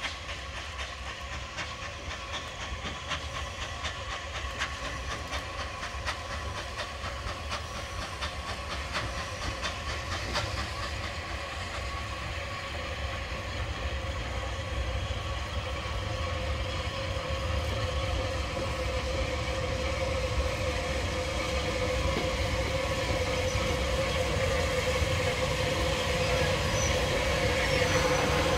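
Unrebuilt Bulleid West Country class light pacific 34092 City of Wells, a three-cylinder steam locomotive, arriving at the head of its train and growing steadily louder as it comes nearer. There are clicks of wheels over the rails in the first ten seconds or so, and a steady tone that builds toward the end.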